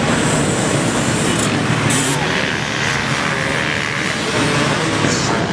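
Dirt bike engines running, with a loud, steady mix of engine noise and rushing noise throughout.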